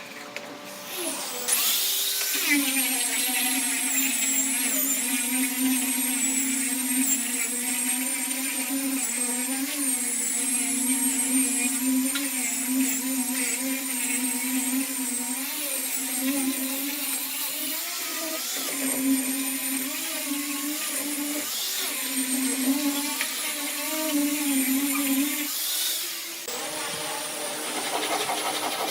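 An electric power tool's motor running steadily, its pitch wavering slightly as it works, starting about two seconds in and stopping a few seconds before the end, after which a rougher, noisier tool sound follows.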